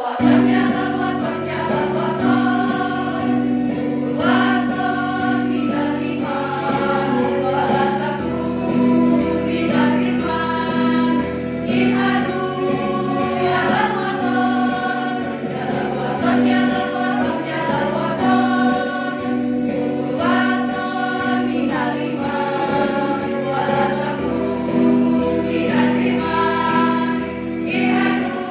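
Girls' choir singing a song with sustained, changing chords.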